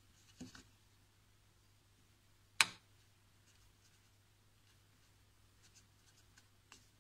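Small plastic clicks and taps as fingers press and turn a JLab JBuds Air ANC earbud in its charging-case cradle: a few light clicks early on, one sharp click about two and a half seconds in, and a few faint ticks near the end.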